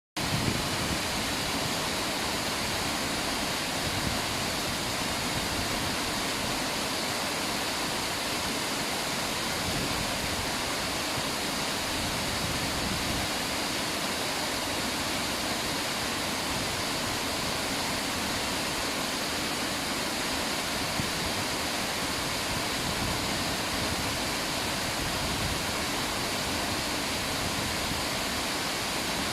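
River water rushing in a steady, unbroken wash of noise.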